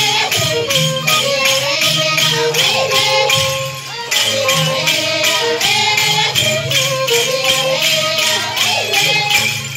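Andean mayura carnival music played live: women sing over a violin while the bells on their staffs jingle in a steady beat, a few strokes a second.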